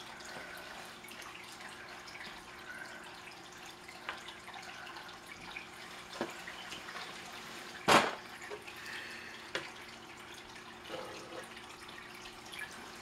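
Aquarium water trickling and dripping over a faint steady hum. A single sharp knock sounds about eight seconds in, with a few fainter clicks around it.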